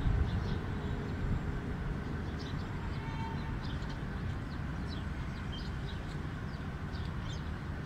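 Outdoor city ambience: a steady low rumble, with small birds chirping repeatedly from about two seconds in.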